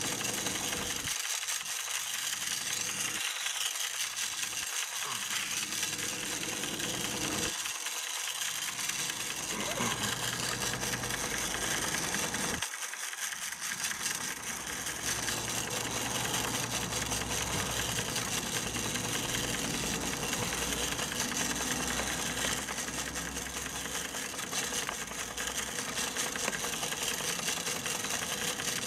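Märklin 4122 toy steam engine running steadily with a quick mechanical clatter, driving an Arnold tinplate blacksmith whose hammer taps the anvil with a light metallic rattle.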